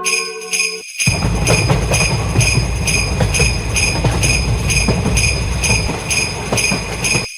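Japanese railroad crossing alarm bell ringing in a steady clang about twice a second, with a low rumble joining underneath about a second in. Both cut off suddenly near the end.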